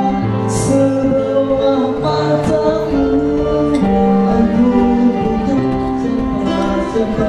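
A man singing into a handheld microphone over instrumental accompaniment, holding long notes.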